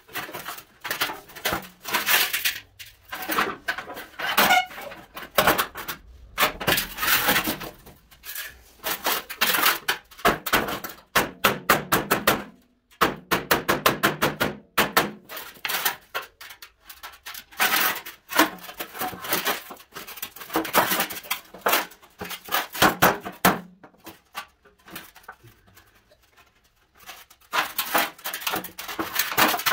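Hammer blows on a rusty sheet-steel car fender, struck in quick runs with short pauses, roughing out its dents from the edges inward. The blows come fastest about ten to thirteen seconds in.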